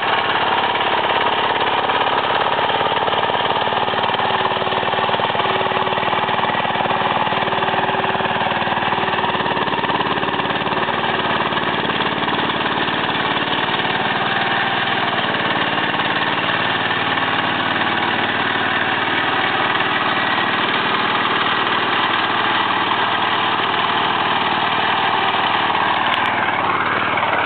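Small engine of a home-built off-road buggy running steadily as the buggy is driven, its note rising briefly near the end.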